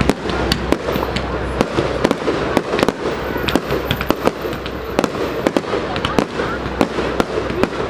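Fireworks going off in quick, irregular succession: many sharp cracks and pops, several a second, over a low rumble.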